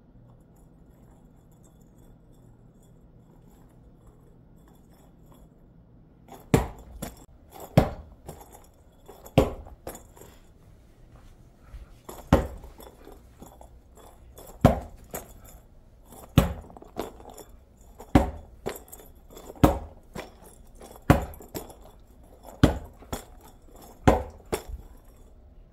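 A ball knocking hard against the floor again and again, a sharp hit about every second and a half with lighter rattling knocks in between, starting about six seconds in.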